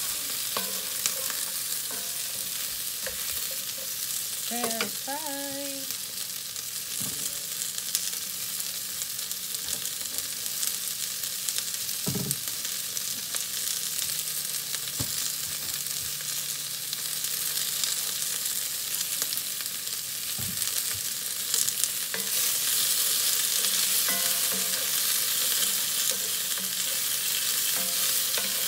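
Cut carrots, asparagus and red onion sizzling in hot oil in a cast iron skillet, stirred at times with a wooden spoon. The sizzle grows louder late on.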